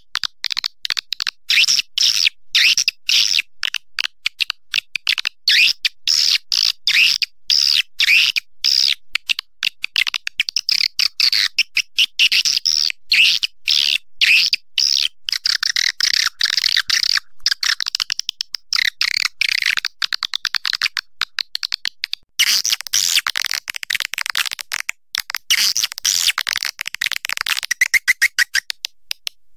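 Edible-nest swiftlet calls: dense, rapid trains of high twittering chirps repeating without pause, the kind of recording played to lure swiftlets into a nesting house. There is a brief break about three-quarters of the way through, after which the chirping goes on.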